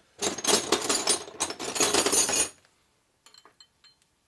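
Metal hand tools clattering as someone rummages through a container of wrenches for about two and a half seconds, followed by a few light clinks as a wrench is handled.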